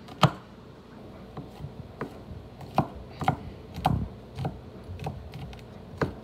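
Kitchen knife chopping fresh leafy herbs on a wooden cutting board: uneven sharp knocks of the blade striking the board, about two a second, the loudest just after the start.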